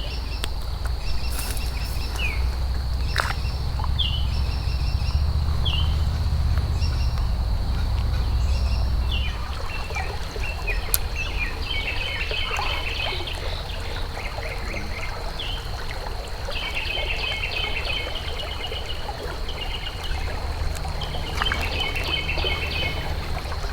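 Small birds chirping in short repeated calls over the running water of a creek, with a thin steady high-pitched tone behind. A low rumble is heavier for the first several seconds, then eases.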